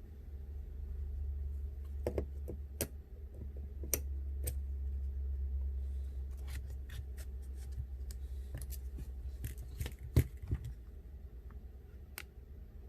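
Small metal repair tools clicking and tapping against the internal parts of an iPhone 8 Plus during disassembly, in scattered sharp ticks with the loudest about ten seconds in, over a low steady hum.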